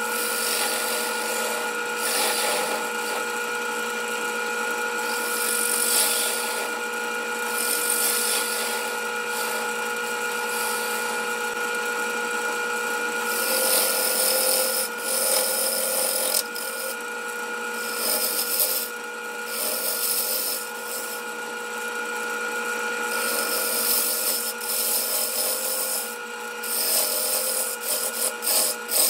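Grizzly wood lathe running with a steady motor whine while a gouge cuts into a spinning aromatic cedar bowl blank. The cutting noise swells and fades with each pass, and near the end it comes in short, choppy strokes.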